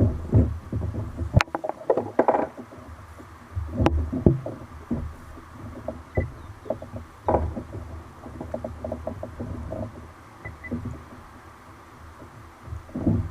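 Irregular knocks, clicks and rattles of gear being handled aboard a fishing kayak, with two sharp knocks in the first four seconds, over a low rumble.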